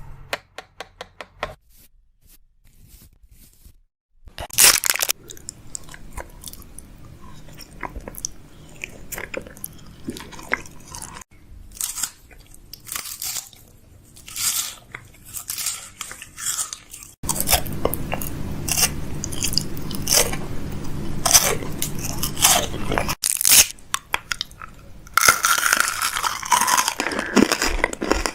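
Close-miked ASMR crunching: a long run of sharp crackles and clicks, with a short lull near the start and thicker, louder crunching in the last ten seconds.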